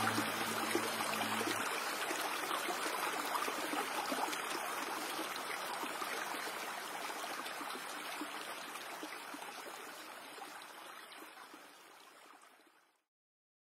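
Shallow water washing and lapping, a steady rush of water that fades out over the last few seconds and stops just before the end.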